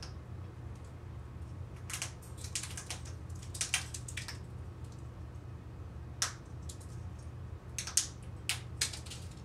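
African grey parrot making sharp clicks in scattered clusters, starting about two seconds in, with a lull in the middle before a few more near the end. A low steady hum runs underneath.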